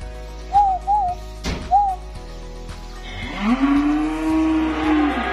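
A calf gives one long moo about three seconds in, rising at the start and then held level for nearly two seconds. Before it there are three short high chirps and a single click.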